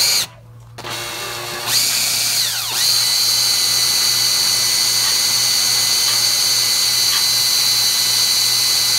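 Cordless drill boring a solid carbide bit into a hardened grade 8 bolt. After a short blip at the start it spins up over the first few seconds, then settles into a steady high whine.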